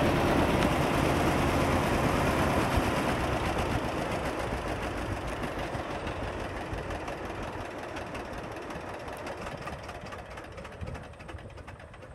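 John Deere 60 tractor's two-cylinder engine idling with a regular, even beat of strokes, fading steadily.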